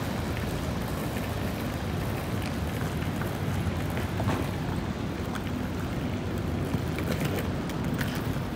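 City street noise: a steady rumble of traffic and wind buffeting the microphone, with faint scattered clicks through it.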